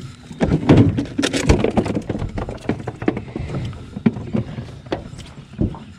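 A run of irregular knocks, thumps and clatter in a small fishing boat while a just-caught bass is handled. The loudest knocks come in the first two seconds, then they thin out.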